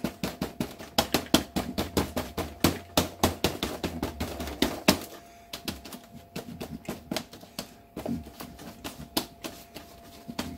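Crumpled paper towel dabbing and patting on wet acrylic paint on watercolor paper: a quick run of soft taps, about four a second, growing sparser about halfway through.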